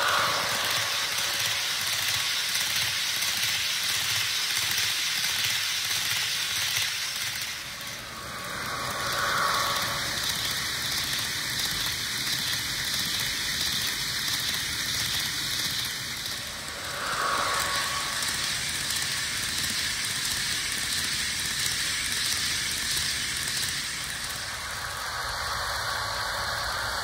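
HO scale Roco model of the SNCF BB-9292 electric locomotive, DCC-converted, running on track with its passenger cars: a steady rattling hiss of wheels on the rails and the motor. The sound dips briefly twice, about eight and seventeen seconds in.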